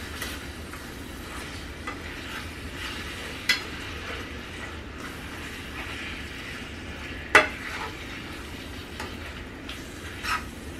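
Ground meat sizzling steadily as it browns in a pan, with a utensil now and then knocking and scraping against the pan as the meat is chopped up; the loudest knock comes about two-thirds of the way through.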